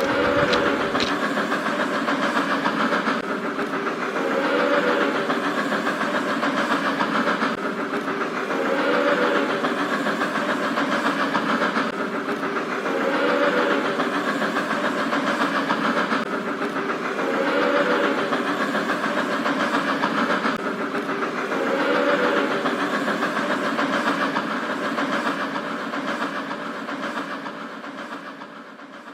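Hornby model train running round a loop of track: a steady running noise from the motor and wheels that swells about every four seconds, once per lap, and fades out near the end.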